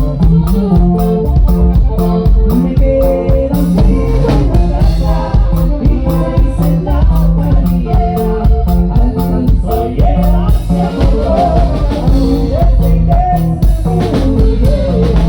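Norteño band playing an upbeat song, with a bouncing bass line, a melody on top and a steady drum beat.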